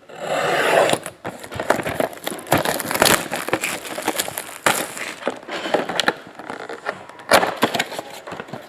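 Plastic shrink wrap being slit with a utility knife and torn off a cardboard trading-card box: a loud crinkling rip in the first second, then irregular crackling and crinkling of the plastic with small knocks of the box.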